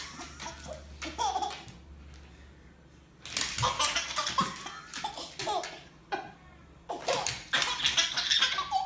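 A baby laughing in bouts of giggles: a short one about a second in, then longer, louder laughter from about three seconds in to near the end.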